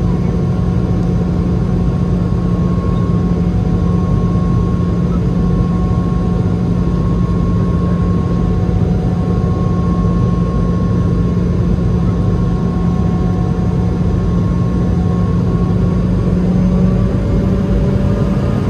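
Cabin noise of a Boeing 717-200 on approach, heard from a seat beside its rear-mounted Rolls-Royce BR715 turbofan. It is a steady drone with a strong low hum and a faint higher tone, and the hum rises slightly in pitch near the end.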